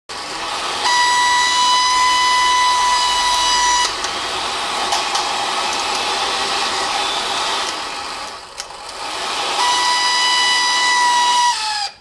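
Nobby salon hair dryer running, its motor giving a steady high whine over the rush of air. About four seconds in, the whine drops out and the sound weakens, sagging further near nine seconds, then the whine comes back near ten seconds before the sound stops abruptly near the end: an intermittent fault whose cause is unknown.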